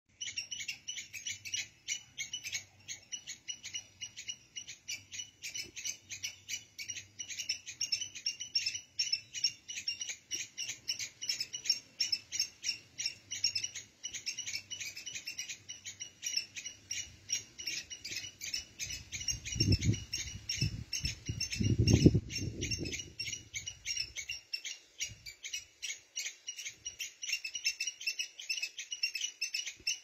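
A squirrel squeaking continuously: a rapid, unbroken series of short, high chirps, several a second. A few low thumps come about two-thirds of the way through.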